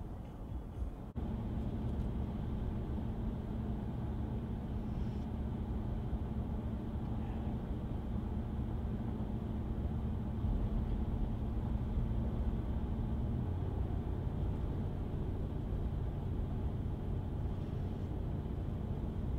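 2019 Ram 1500's 5.7-litre HEMI V8 with a Mopar cat-back exhaust, heard from inside the cab at highway speed: a steady exhaust drone over road noise. The sound jumps louder about a second in, and the engine note steps down in pitch about thirteen seconds in.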